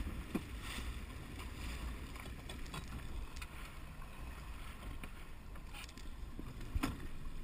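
Small outboard-powered boat under way: a steady low rumble of the motor and water against the hull, with a couple of sharp knocks, one about half a second in and one near the end.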